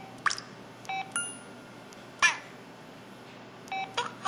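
KTF-E2500 mobile phone key sounds: a few short beeps and sharp clicks, with a brief steady tone about a second in. The loudest is a single click a little past two seconds.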